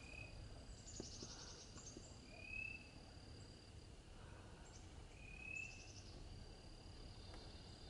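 Faint field-edge ambience: birds calling, with two short whistled notes a few seconds apart and a couple of quick high trills, over a thin steady high-pitched tone.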